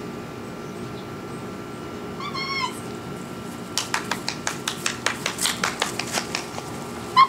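A Rottweiler puppy gives a short, high whimpering cry about two seconds in, and starts another whine right at the end. In between comes a quick run of sharp ticks lasting a couple of seconds.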